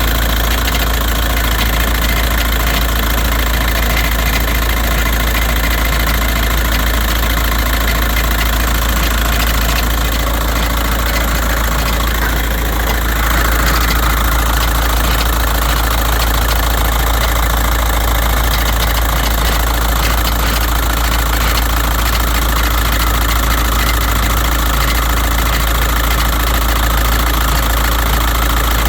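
2006 VW Jetta's 1.9 L BRM TDI four-cylinder turbodiesel running steadily with a metallic popping, clunking rattle whose cause the owner does not know. About halfway through the sound steps up a little louder and brighter.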